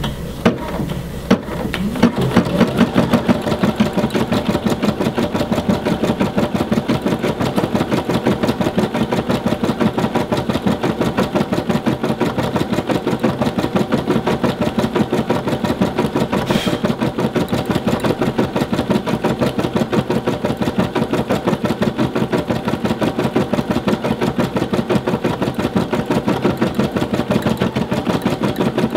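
Brother SE600/SE625 embroidery machine stitching a pattern: the needle strokes run in a rapid, even rhythm that starts about two seconds in, after a few separate clicks.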